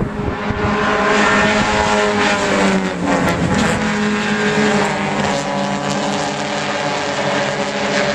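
A pack of race cars running together on a circuit, several engines at once. Their notes slide down in pitch over the first three seconds or so, then hold fairly steady.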